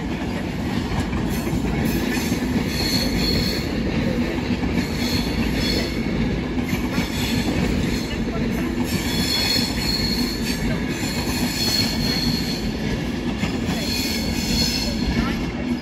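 Class 390 Pendolino electric train pulling out, its wheels squealing high-pitched on and off over a steady low rumble of wheels on rail.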